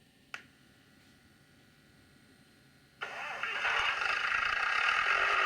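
Digital sound decoder in a Bachmann Derby Lightweight model DMU playing a diesel engine start-up through the model's small speaker: a faint click about a third of a second in, then about three seconds in the engine cranks and settles into a steady idle. This is the first of the unit's two engines starting.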